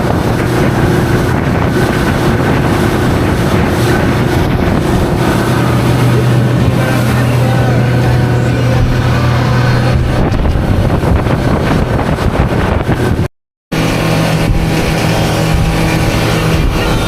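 Motorboat engine running steadily at speed, with a steady low hum. The sound drops out briefly about three-quarters of the way through.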